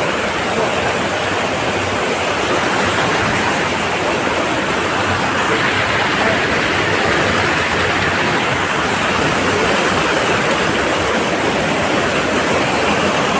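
Waterfall pouring steadily: a loud, even rush of falling water.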